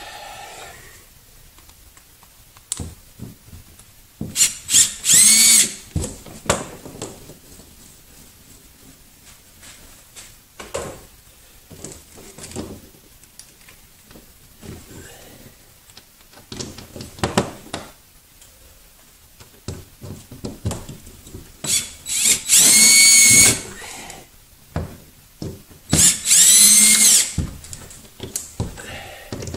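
Cordless drill/driver driving Torx screws through a plastic fire extinguisher bracket into drywall anchors: three runs of motor whine, a short one about five seconds in and two longer ones near the end, with knocks and clicks of the bracket and screws being handled in between.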